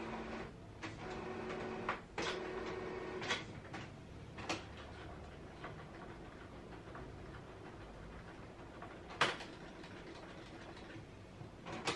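Canon Pixma TS5020 inkjet printer working through the end of a print job. Its motor whirs in short spells during the first three seconds or so, then come a few separate clicks, the loudest about nine seconds in.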